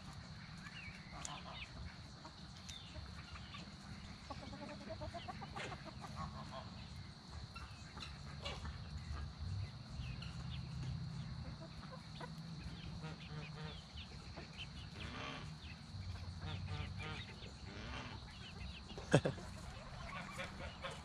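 Foraging chickens clucking quietly in scattered short calls over a low background rumble. A single sharp knock comes near the end.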